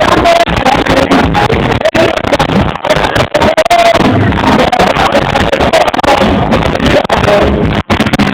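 Live reggae band music recorded on a phone microphone, loud and overloaded so that it sounds distorted and harsh, with a brief dropout near the end.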